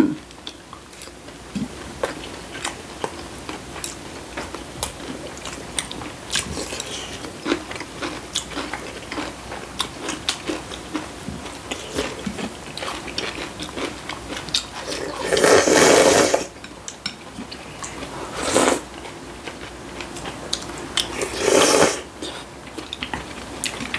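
People eating kalguksu noodles and dumpling pancake close to the microphone: soft chewing and small clicks throughout, with three loud slurps of noodles and broth, a long one about two-thirds of the way through, a short one soon after, and another near the end.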